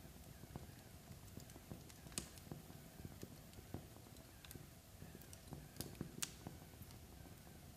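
Wood fire crackling softly as logs burn down to embers: irregular small ticks and pops over a low rumble, with a few sharper pops about two seconds in and again around six seconds in.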